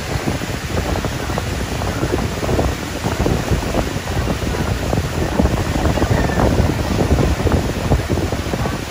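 Water pouring from artificial rock waterfalls and bubbling pool jets into a swimming pool: a steady rushing wash with many small splashes.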